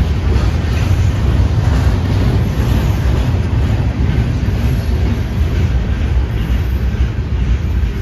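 Freight cars of a manifest train rolling past close by: a steady, loud rumble of steel wheels on the rails, without a break.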